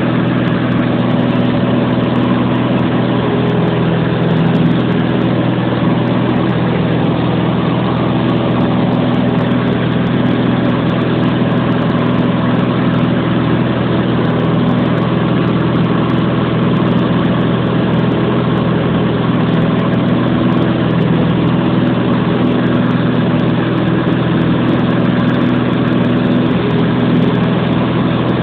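Steady drone of a light aircraft's engine and propeller in flight, heard from inside the cabin, holding one even pitch.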